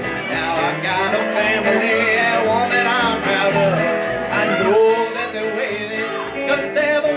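Small country band playing live: steady plucked upright bass notes about twice a second under electric and acoustic guitars, with a lead line that bends up and down in pitch.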